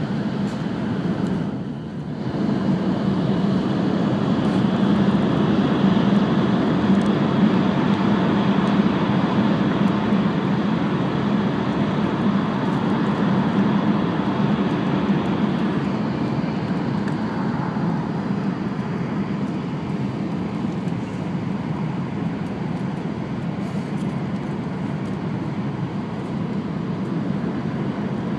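Cabin running noise of an E5 series Shinkansen: a steady rumble, dipping briefly about two seconds in and easing slightly past the middle.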